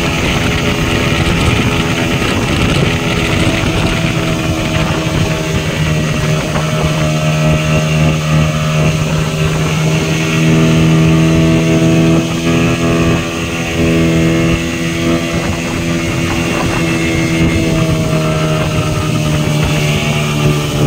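Speedboat engine running at a steady pitch while towing, over the continuous rush of water from the wake.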